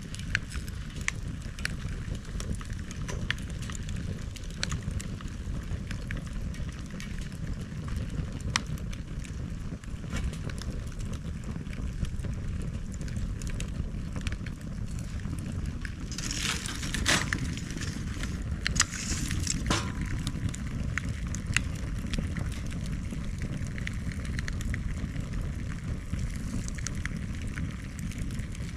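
Bonfire of cut bamboo burning: a steady low rumble with scattered sharp crackles and snaps, and two louder bursts of hissing crackle a little past the middle.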